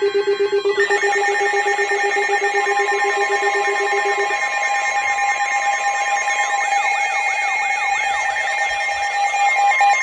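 Several NOAA weather alert radios sounding their alarms at once for a severe thunderstorm warning. A fast-pulsing low beep stops about four seconds in; over it run steady high alert tones and a wavering, siren-like warble.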